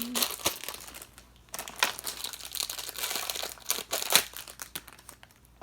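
Plastic packaging of simple dimple fidget toys crinkling as it is handled and pulled open, in irregular crackles with a short pause about a second in, growing quieter near the end.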